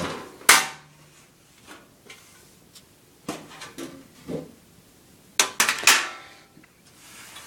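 Sheet-metal computer case and its side panels being handled and set down: a sharp clank about half a second in, a few softer knocks a few seconds later, then a quick run of metallic clanks with a short ring near the end.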